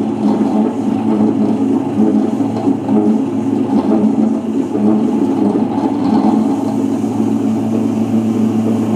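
Preethi Iconic tabletop wet grinder running, its motor turning the drum as it kneads chapati dough. A steady, even hum throughout.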